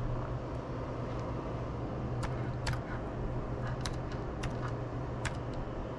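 Laptop keyboard keystrokes, a handful of scattered single clicks, over a steady low hum.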